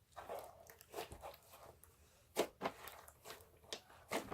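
Slime being kneaded and mixed by hand: faint, scattered squishing and crackling from the foam beads in it.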